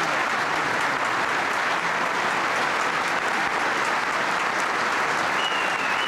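Large crowd applauding, a dense, steady clapping that holds at one level throughout.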